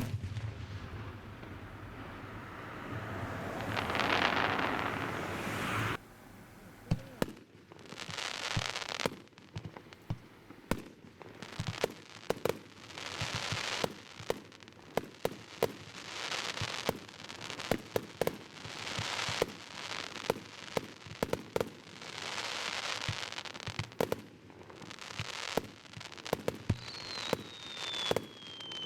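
Fireworks display: a swelling crackling hiss for the first few seconds, then rapid sharp bangs, often several a second, over recurring crackling swells. A falling whistle comes near the end.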